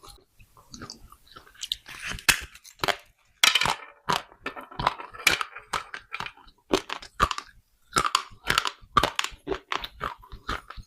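Close-miked biting and chewing of baked clay pot pieces: a quick, irregular run of sharp, dry crunches.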